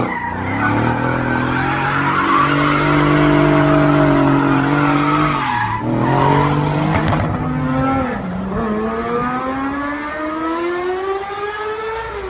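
Car engine revving at high speed while the rear tyres spin and squeal in a smoky burnout. The engine note drops away near the middle, then climbs steadily as a car accelerates hard toward the end.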